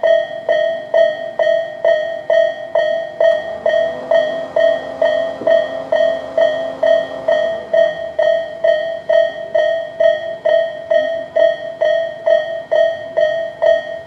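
Japanese electronic level-crossing warning bell (Tobu "sound A") ringing in an even, repeating strike, a little over two strikes a second. In the middle, a Tobu 8000-series commuter train's low rumble and hum passes under the bell for a few seconds.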